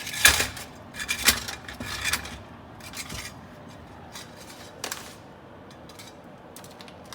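Irregular scraping, rubbing and light clattering of dishes and utensils being handled, loudest in the first two seconds and then sparser.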